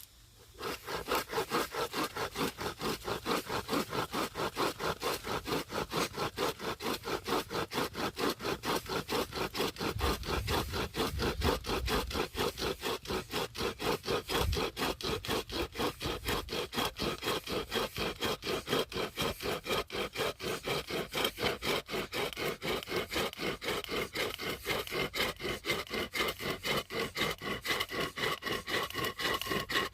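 Homemade hand chainsaw, a length of saw chain pulled back and forth by two wooden handles, cutting through wood in fast, even rasping strokes, about three a second.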